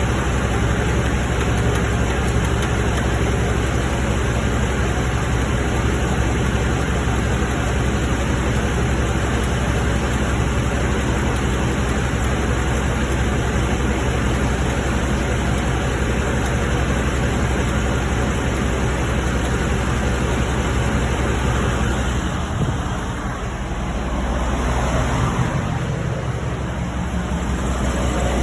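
2013 Ford F-150's 5.0 V8 engine running steadily, with a brief dip in level near the end.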